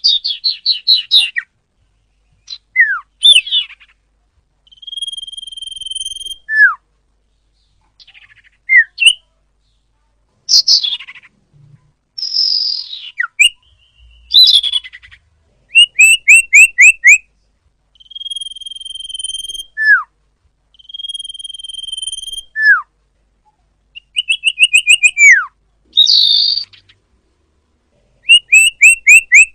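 Sirpu (sirdung) bird singing a varied series of loud phrases: quick chattering trills that fall in pitch, level whistled notes about a second long, and short whistles that slide sharply downward, with brief pauses between phrases.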